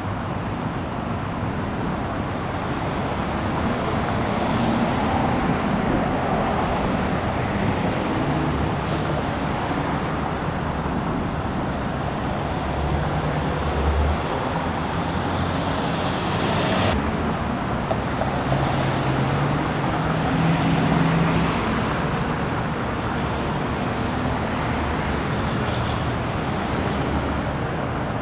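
Steady rumble of idling truck engines and highway traffic, with low engine hums that come and go and one sharp knock about seventeen seconds in.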